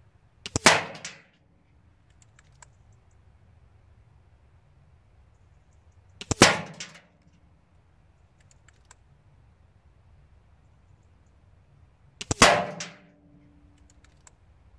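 Air Arms S510 SL Carbine .22 pre-charged pneumatic air rifle firing three single shots about six seconds apart, each a sharp crack with a short tail. Faint clicks come between the shots.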